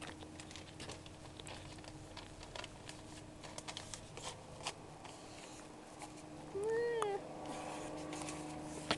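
Faint crackling and small pops of binder paper burning in a small clay fireplace. About two-thirds of the way through comes one short call that rises and falls, like a meow.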